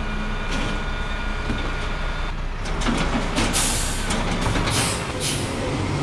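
Garbage truck at work: its engine runs with a low, steady hum and a thin high whine that stops a little over two seconds in. Then several short bursts of hissing air follow.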